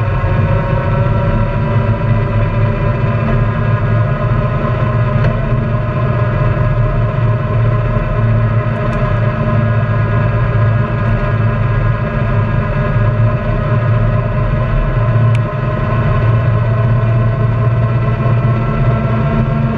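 Honda Pioneer 700-4 side-by-side's 675 cc single-cylinder engine running steadily at cruising speed, with tyres rolling on a gravel trail.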